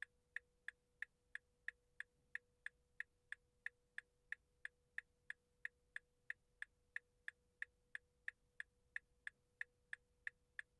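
Clock ticking evenly, about three ticks a second, over a faint steady tone.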